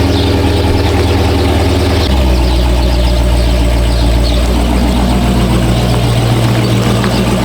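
Supercharged 6.2-litre Hemi V8 of a Dodge Charger Hellcat idling while it warms up after starting, a loud, steady low rumble. About two seconds in, the low note of the idle shifts and then holds steady again.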